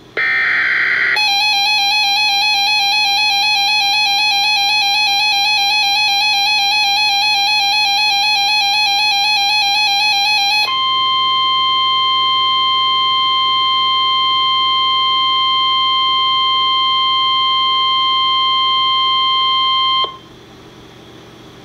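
NOAA Weather Radio emergency alert tones. A short burst of SAME digital header data opens it. It switches to a steady two-tone EAS attention signal for about ten seconds, then to the single 1050 Hz weather-radio warning alarm tone, which holds for about nine seconds and cuts off into faint radio hiss.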